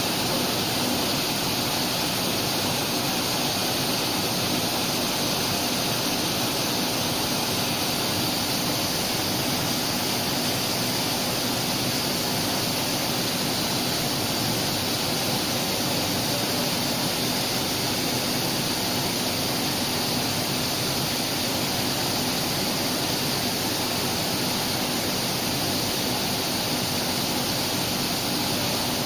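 5-axis CNC tool grinder running: a steady, even rushing hiss that does not change, like coolant and a spinning grinding spindle inside the machine's enclosure.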